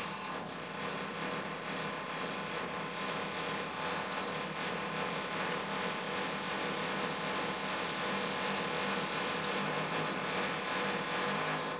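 Steady hum with hiss, made of many fixed tones, running at an even level.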